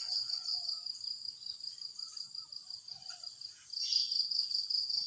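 Insects chirring steadily in a high, fast-pulsing drone that eases off in the middle and comes back louder near the end, with a few faint chirps under it.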